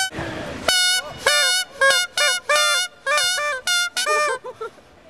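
Plastic novelty 'England horns', the squeaky small cousin of the vuvuzela, blown in a string of about eight short toots over four seconds. Some toots start with a quick dip in pitch. They tail off into a few faint short blips near the end.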